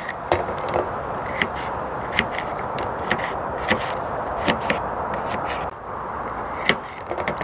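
Knife rough-chopping garlic on a chopping board: irregular sharp taps, roughly two a second, over a steady background hiss.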